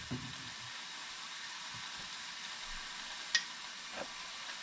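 Soft, steady sizzle of food cooking in a hot pan, with a sharp click about three seconds in and a light knock just after.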